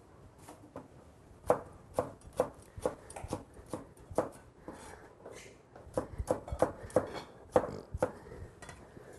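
Chinese cleaver slicing a red chili pepper on a wooden cutting board: a run of sharp knife knocks on the board, about two or three a second, with a short pause about halfway.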